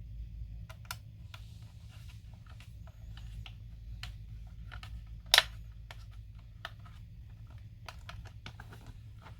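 Hands closing up a remote-control toy bulldozer, fitting its cover and parts back together: irregular light clicks and taps, with one sharp, loud snap a little past halfway.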